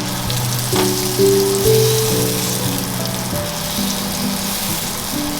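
Marinated paneer cubes frying in a little hot vegetable oil, sizzling steadily, with background music playing.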